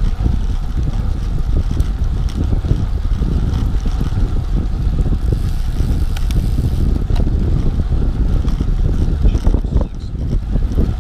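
Wind rushing over the microphone of a camera on a bicycle riding at about 15 mph: a loud, low, unsteady rumble.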